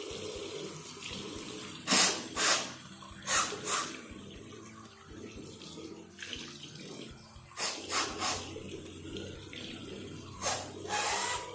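Tap running steadily into a wash basin, broken by short, loud bursts of a person forcefully clearing her nose over the basin, in groups of two or three.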